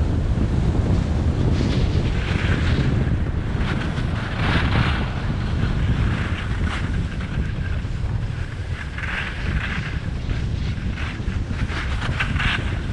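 Wind rumbling over the camera microphone while riding fast down a groomed ski run. The hiss of edges scraping the snow comes and goes in several spells.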